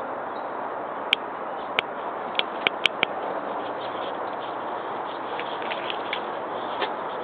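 Steady background hiss with about half a dozen sharp clicks between one and three seconds in, and a few fainter ticks later.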